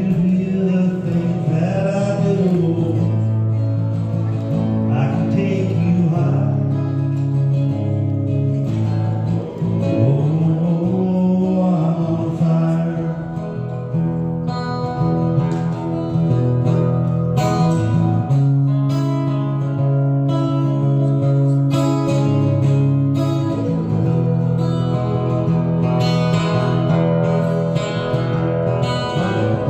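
A man sings with his own strummed acoustic guitar. The voice comes and goes, strongest in the first half, while the guitar chords keep a steady strum.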